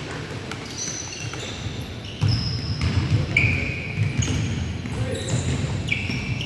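Sneakers squeaking on a hardwood basketball court, several short high squeaks, with a basketball bouncing a few times. A low rumble sets in about two seconds in.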